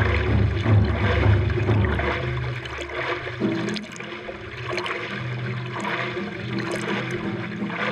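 Hands stroking through the water on both sides of a paddleboard ridden prone, splashing about once a second with water rushing along the board. A low rumble runs under it for the first two or three seconds.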